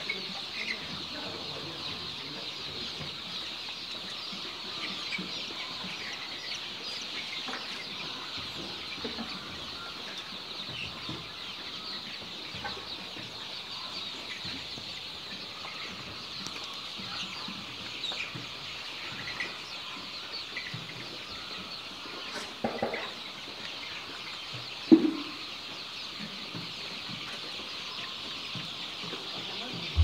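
A large flock of young chicks peeping and cheeping continuously, a dense high-pitched chorus of many birds at once. Two brief louder noises cut through it about three-quarters of the way in.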